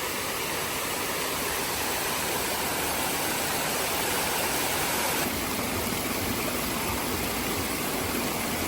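Running water in a garden water feature, a steady, even rush of water with no breaks.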